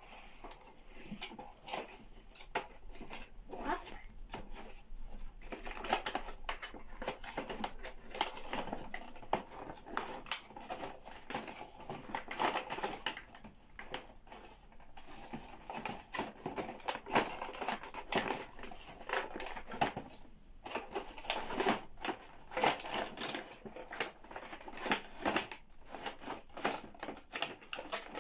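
Cardboard toy box being opened and its clear plastic packaging tray handled, giving a continual irregular crinkling, rustling and clicking.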